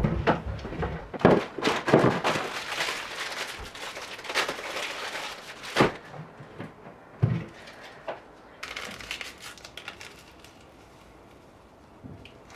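Objects being handled: scattered knocks and clicks with rustling, hissing noise through the first half, a couple of louder knocks around six to seven seconds in, then quiet room tone.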